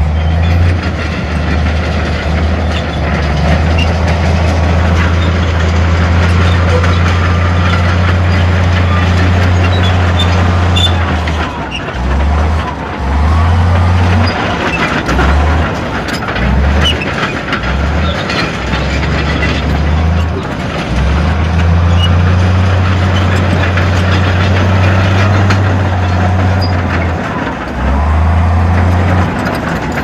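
Heavy diesel machinery running: a steady, loud, deep rumble that breaks up into short stops and starts in the middle and again near the end.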